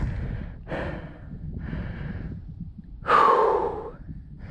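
A man breathing hard, catching his breath after pedalling up a steep climb: about four heavy breaths, the loudest a voiced sigh about three seconds in.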